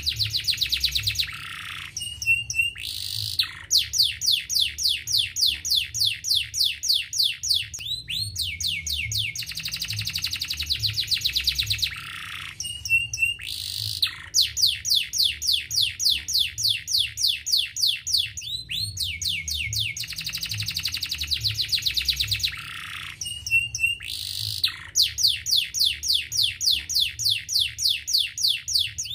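Domestic canary singing loudly: long, rapid trills of rising notes in phrases of a few seconds, broken by short pauses and brief rolling notes, the same song sequence coming round again about every ten seconds. It is a 'gacor' lure song of the kind played to coax reluctant canaries into singing.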